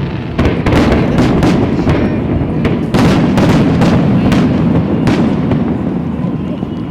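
Fireworks display going off: many sharp bangs in quick succession over a continuous low rumble of bursts, tailing off slightly near the end.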